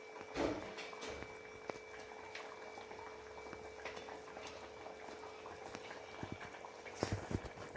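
Thick sardine curry gravy bubbling at a boil in a metal pot under a faint steady hum. A soft splash comes about half a second in, and a few knocks near the end, as the fish are laid into the gravy by hand.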